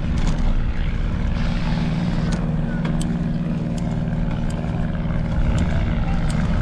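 A steady low engine hum over a rumbling background, with scattered light clicks throughout.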